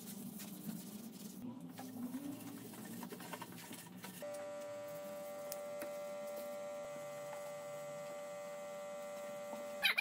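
A cloth rubbed by a gloved hand over a wet-finished walnut tabletop, giving a soft irregular scratchy rustle. About four seconds in, a belt sander's electric motor starts a steady pitched hum that holds unchanged until just before the end.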